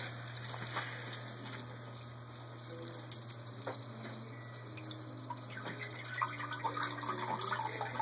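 Electric submersible sump pump running with a steady low hum as it pumps water out of the pit, with water trickling and splashing in the basin.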